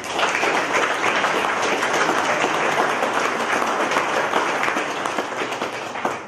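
Audience applauding, starting at once, holding steady and dying away near the end.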